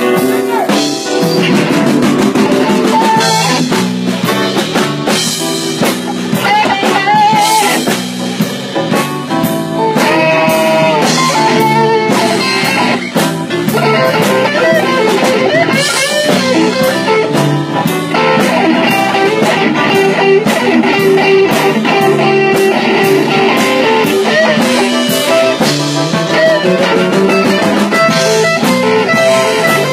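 Live blues-rock band playing an instrumental passage: electric guitar and keyboard over a drum kit.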